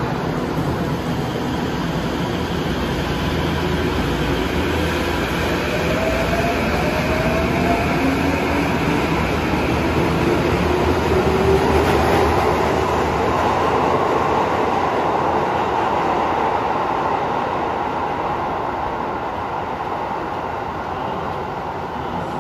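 Tokyo Metro Tozai Line subway train pulling out of the station. Its motor whine rises in pitch as it accelerates over the running rumble, then the sound fades as the train leaves the platform.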